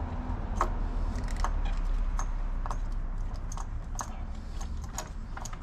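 Scattered small metallic clicks and taps of a hand tool working the intake manifold bolts loose on a V8 engine, over a low steady hum.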